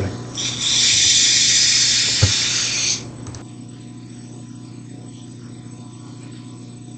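Belt grinder running with a 220-grit aluminum oxide belt: a knife blade is pressed to the belt for one grinding pass of about two and a half seconds, putting the initial edge on it. The blade is then lifted, leaving the grinder's motor humming steadily on its own.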